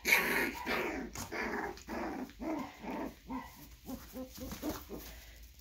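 Three-week-old puppies play-fighting, giving a rapid string of short barks and growls about three a second, loudest at the start and fading away near the end. These are normal puppy noises for this age.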